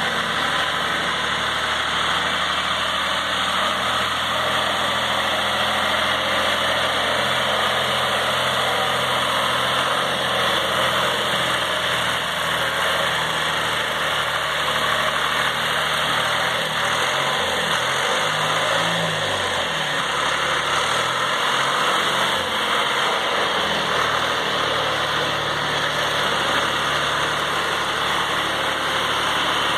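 Engine of a yellow John Deere loader tractor running steadily while it drives with a log raised in its front loader. About two-thirds of the way through, the engine note rises and falls back.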